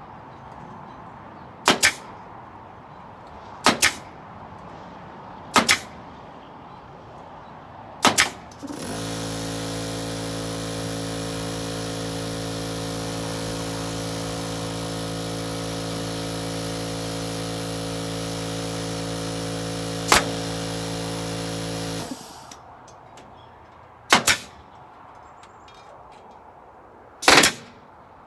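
Sharp tool strikes, each a quick double crack, about every two seconds. A motor then starts suddenly and runs steadily for about thirteen seconds with one more strike during it, and after it cuts off there are two more strikes. This fits a pneumatic nail gun firing and its air compressor running to refill.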